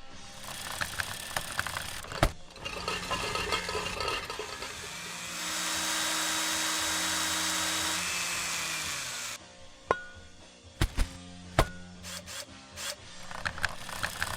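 Homemade foley effects for a small robot at work: rough scraping and grinding, then a steady loud hiss for about four seconds in the middle, then a run of sharp clicks and knocks, over steady background music.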